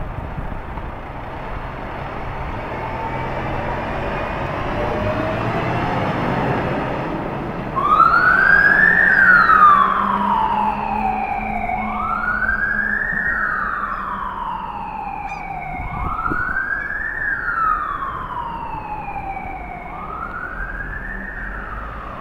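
Volvo FL fire engine responding to a call. For the first eight seconds there is steady vehicle noise that grows as the truck pulls away. Then its siren starts suddenly: a wail that rises quickly and falls slowly, repeating about every four seconds, four times.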